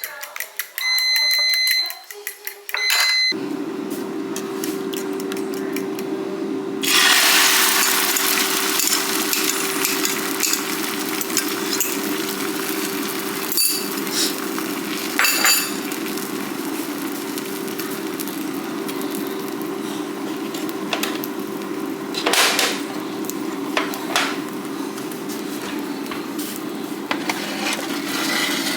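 A few short electronic appliance beeps, then a steady fan-like hum starts about three seconds in. About seven seconds in, food starts sizzling loudly in a frying pan, with occasional clinks and scrapes of a utensil against the pan.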